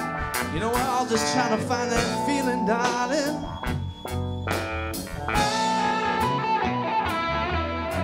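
A live rock band playing an instrumental passage: electric guitars, keyboard, bass and drums, with bending pitched lines over a steady beat.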